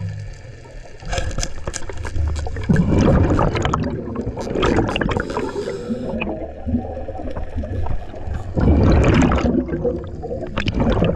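Scuba diver breathing through a regulator underwater: bubbling exhalations rush out in loud bursts every few seconds, with quieter hissing between them.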